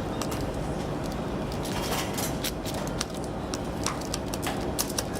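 Irregular light clicks and knocks, a dozen or so, thicker in the second half, over a steady low background hum.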